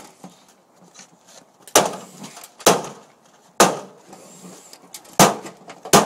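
Five sharp knocks about a second apart, from scrap microwave ovens being worked on.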